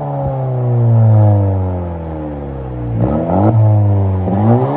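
2019 Honda Civic Si's 1.5-litre turbocharged four-cylinder, muffler deleted and fitted with quad tips, revved: the revs fall slowly from a high rev for about three seconds, then two quick throttle blips rise and fall near the end.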